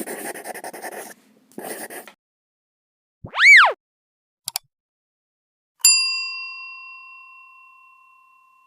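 Edited intro sound effects: two short whooshes, a loud whistle-like swoop that rises and falls, a quick double click, then a bell ding about six seconds in that rings out slowly.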